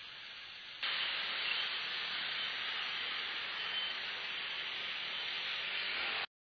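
Steady hiss of riding noise picked up by a motorcycle helmet camera's microphone, louder after a cut about a second in and cutting off abruptly near the end.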